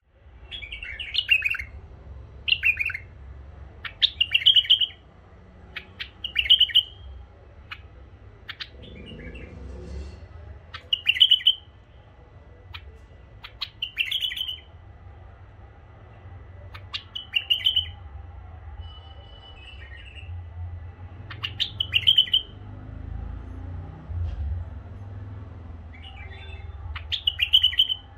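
White-eared bulbul singing short, warbled phrases, one every two to three seconds, with a faint steady low hum underneath.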